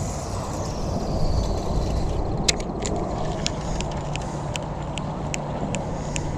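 Spinning fishing reel cranked on the retrieve after a cast, giving regular light clicks about three a second over a steady low rumble.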